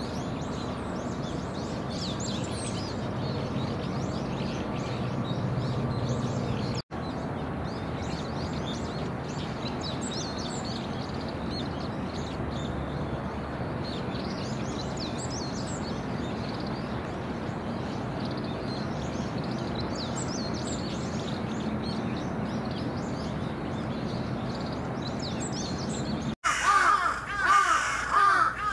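Steady outdoor background noise with small birds chirping, then, near the end, crows fighting and giving loud, harsh, rapidly repeated caws.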